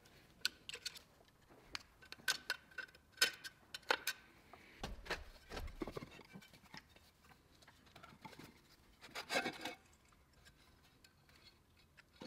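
Tools and small metal parts being handled on a workbench: a run of sharp clicks and taps, a dull thump about five seconds in, and a short scrape near ten seconds.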